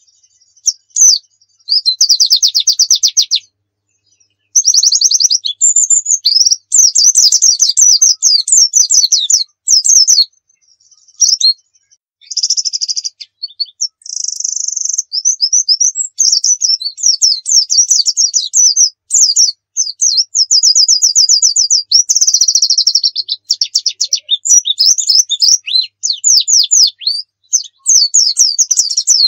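A pleci dakun, a caged white-eye, singing non-stop in fast, high-pitched trills and warbled phrases. Short pauses come about four and eleven seconds in. This is the full, vigorous song that keepers play to train other white-eyes.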